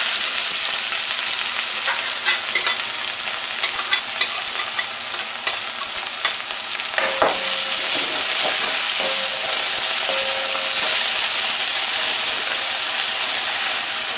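Sliced onion and scallion sizzling steadily in hot oil in a metal pot. A metal spoon clinks and scrapes against the pot as they are stirred, most through the middle of the clip.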